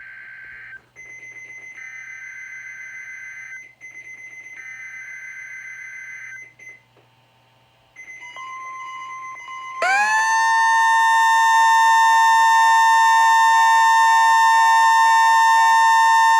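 NOAA Weather Radio test broadcast: three buzzy bursts of digital SAME header data, each about two seconds long. About ten seconds in, a loud, steady warning alarm tone starts and holds.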